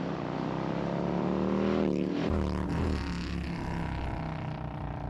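Harley-Davidson V-twin motorcycle engine revving through an aftermarket exhaust: the pitch climbs, drops back about two seconds in, and the engine runs on at a lower, steady pitch.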